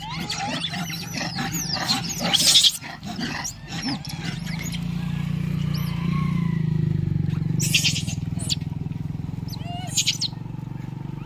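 Rhesus macaques squealing and screeching in short rising and falling cries as they crowd in to be fed bananas, loudest in the first few seconds and again briefly near the end. Midway a vehicle engine hums past, swelling and fading over several seconds.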